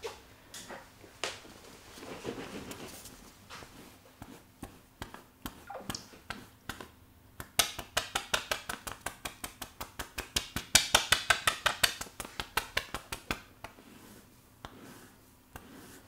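Plastic bristle scalp brush worked quickly over the scalp and hair, giving a run of crisp scratchy clicks at about six a second that starts about halfway through, lasts some six seconds and is loudest near its end. Before it come scattered soft clicks and rustling from fingers moving in the hair.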